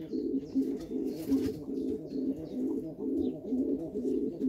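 Domestic pigeons cooing continuously, a low, warbling, many-layered murmur of several birds at once.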